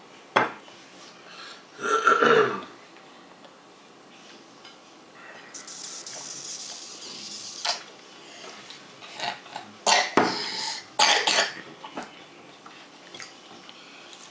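A toddler burps loudly about two seconds in, just after drinking from a sippy cup. A few shorter, sharper sounds follow near the end.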